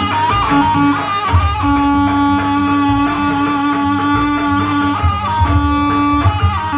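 Live jaranan dance music: a melody holding long high notes over a sustained low note, with irregular drum beats underneath.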